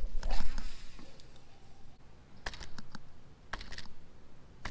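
Light clicking in short bursts, about three times, from a baitcasting rod and reel being handled and worked while fishing a soft-plastic worm.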